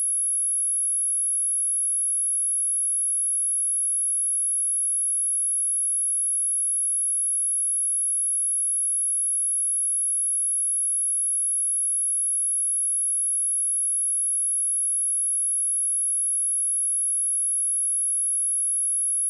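A steady, unbroken high-pitched pure sine tone at 10756 Hz, a test tone for checking speakers and headphones.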